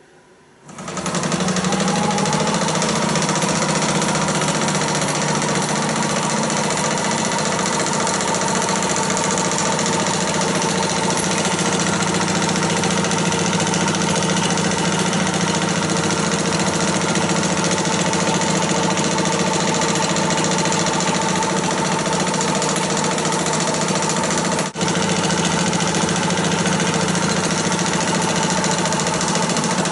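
Antique 35mm cinema projector mechanism starting up under motor drive and running steadily, its belt-driven colour wheel spinning, with a steady mechanical clatter and a whine that rises a little as it comes up to speed. It runs at about 16 to 17 frames a second, too slow for the colours to fuse. The sound briefly drops out about 25 seconds in.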